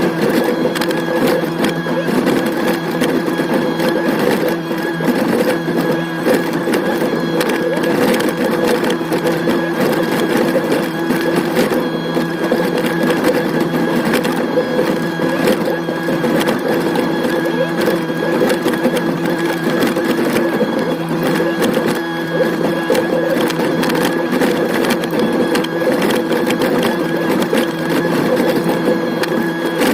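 Excavator's diesel engine and hydraulics running steadily at a constant pitch, with a fine rapid clatter, while it digs a ditch.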